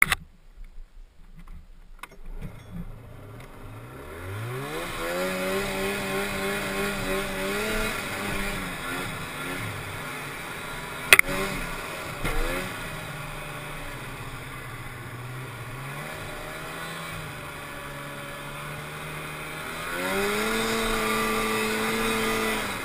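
Polaris Indy 340 snowmobile's two-stroke engine running under way. Its pitch rises a few seconds in, holds, drops lower in the middle, then climbs again near the end. There is a sharp knock about eleven seconds in.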